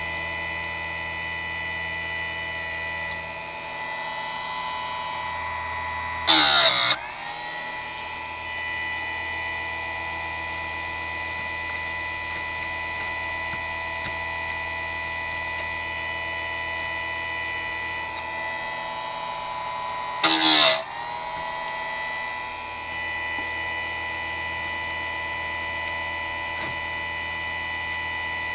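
Chicago Electric (Harbor Freight) electric chainsaw chain sharpener's motor running with a steady whine. Twice, about six seconds in and again about fourteen seconds later, the grinding wheel is brought down onto a chain cutter, giving a loud, harsh grinding burst of under a second.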